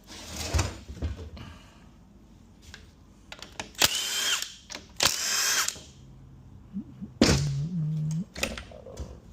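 Cordless drill/driver run in several short bursts, spinning out the valve body bolts of a Ford 10R80 ten-speed automatic transmission.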